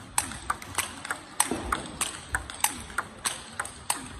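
Table tennis ball in a fast practice rally: sharp clicks of bat hits and table bounces, about three a second, some with a short ping.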